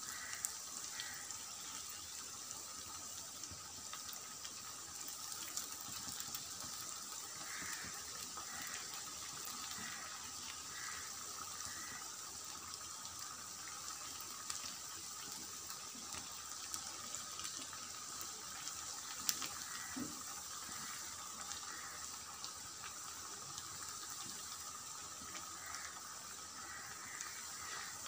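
Potato rings deep-frying in hot oil in a frying pan: a steady sizzle and hiss of bubbling oil, with a few light taps as a silicone spatula turns the rings.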